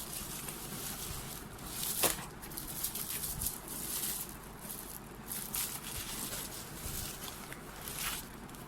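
Packaging being handled and opened: repeated crinkling rustles, with a sharper crackle about two seconds in.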